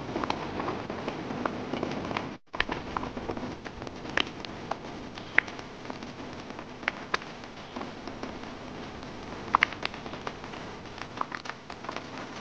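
Cream sauce with mushrooms and chicken simmering in a stainless steel pan: a steady sizzle with scattered bubbles popping and crackling. The sound breaks off for a moment about two seconds in.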